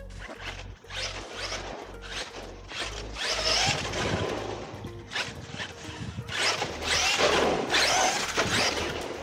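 Electric radio-controlled car running on block paving: its motor whine and tyre noise swell and fade several times as it speeds up and slows. Background music with a steady beat plays underneath, most clearly in the first few seconds.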